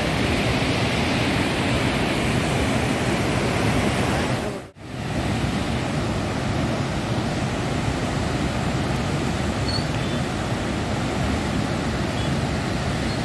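Floodwater released through a dam's open shutters, rushing through a wide river as churning whitewater rapids in a steady, loud rush. It cuts out for a moment a little under five seconds in, then carries on.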